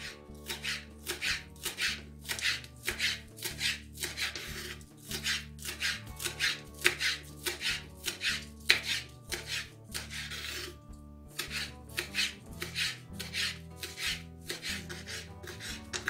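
Kitchen knife finely chopping green onion and dill on a bamboo cutting board: quick, even strikes of the blade on the wood, about three a second, with a short pause about eleven seconds in.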